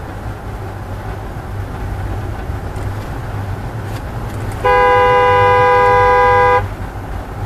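Two-note car horn held for about two seconds, starting a little past the middle, over the steady rumble of road and engine noise inside a moving vehicle.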